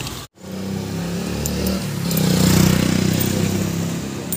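A motor vehicle's engine running close by, getting louder about two seconds in and then easing off, after a brief cut-out just after the start.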